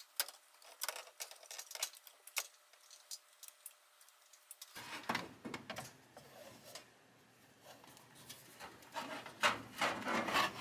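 Hands handling Ethernet cables and a network switch inside a metal wall cabinet: irregular clicks, taps and rubbing, with a louder cluster of clicks near the end.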